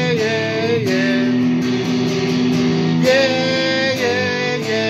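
Rock music: electric guitar chords strummed under a singing voice holding long, wavering notes, twice.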